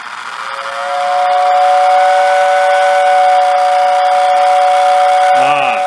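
Lionel postwar 6020W whistle tender's whistle sounding: a steady two-note chord over a rushing hiss, loud, building up over about the first second and then holding.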